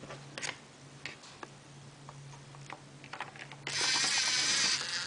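A few light plastic clicks, then about three and a half seconds in a Lego Mindstorms NXT servo motor whirs for about a second, turning the rubber wheel that draws the card into the Lego ATM.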